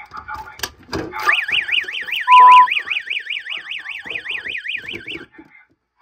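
Two sharp clicks, then an electronic fire alarm siren starts warbling rapidly, its pitch sweeping up and down about five times a second, and cuts off suddenly near the end. A short, very loud steady beep sounds over it early in the siren.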